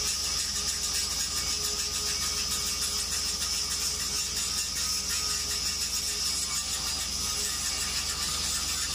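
Automatic orbital pipe welder running a wire-fed arc around a pipeline girth weld: a steady hiss of the arc and spatter over a low hum.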